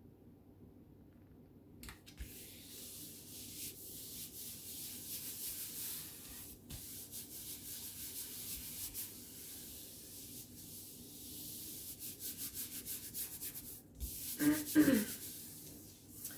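Palms rubbing and smoothing a glued paper cutout flat onto paper: a dry swishing rub that starts about two seconds in, rising and falling, and turns into quick back-and-forth strokes, about four a second, near the end.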